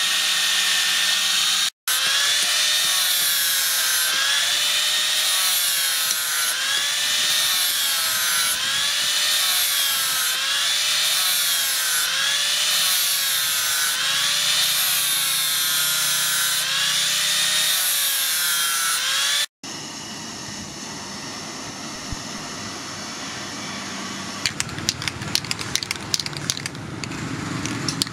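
Angle grinder with a sanding disc working a steel knife blade, its whine rising and falling about every 1.3 s as the disc is swept along the blade. It cuts off about two-thirds of the way through, leaving a quieter background hiss with scattered ticks.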